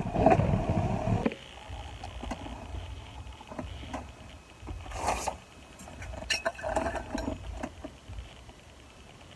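Car idling, heard from inside the cabin as a low steady rumble. It is louder for the first second or so, and a few light clicks and rustles come through near the middle.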